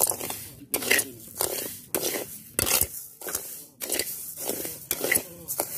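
A spatula stirring and scraping dry rice grains around a hot pan, in repeated scraping strokes about one every two-thirds of a second, as the rice toasts to a golden, fragrant stage.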